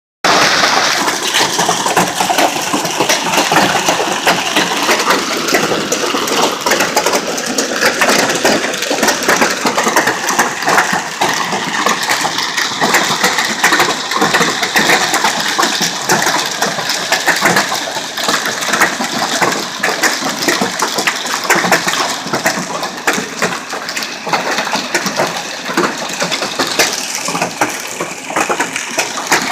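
Hailstones pelting down in a dense, unbroken clatter of countless small impacts over a rushing hiss of rain.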